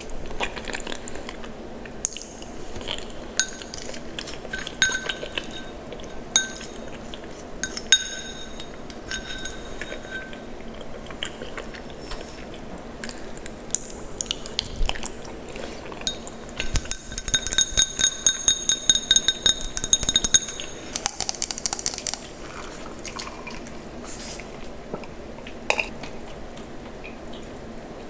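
Tableware clinking: scattered sharp, ringing clinks, with a quick run of them about two-thirds of the way through.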